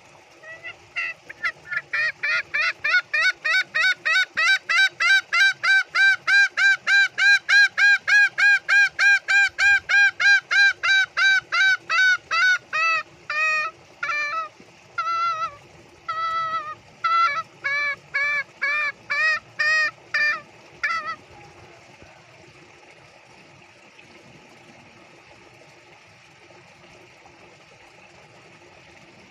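Green junglefowl giving its 'ngekek' cackling call, a calling-out to other junglefowl. It is a rapid, even run of about three notes a second that lasts roughly eleven seconds, then breaks into slower, uneven groups of notes and stops about 21 seconds in.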